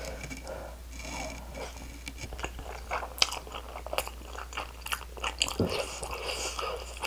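Close-up chewing of a mouthful of Buldak spicy stir-fried ramen noodles coated in melted cheddar cheese, with many short, irregular wet clicks from the mouth.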